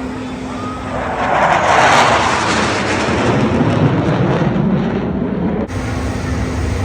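Jet fighter roaring past: the noise swells to its loudest about two seconds in, then slides lower in pitch as the jet moves away.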